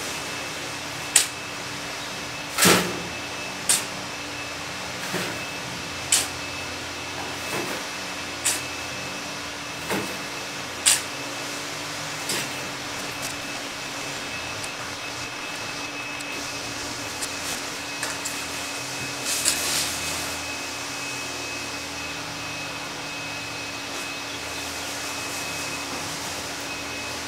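A shovel digging into a pile of loose soil and tipping it into a wheelbarrow: a sharp scrape or thud about every second for the first dozen seconds, then a few more a little before twenty seconds in. A steady machine hum runs underneath.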